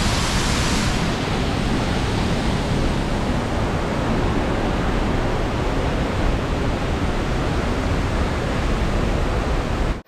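Steady roar of a large waterfall, the water falling about 50 metres, heard close by as a continuous rushing noise heavy in the low end. The top of the hiss softens slightly after about a second.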